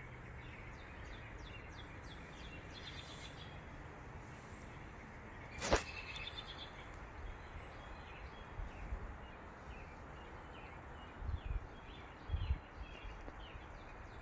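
Outdoor ambience of birds chirping over a steady background buzz of unknown source, with one sharp click about six seconds in and a few low thumps near the end.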